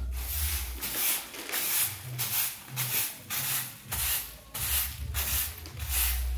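A broom sweeping a bare concrete floor, in brisk, even strokes about two a second.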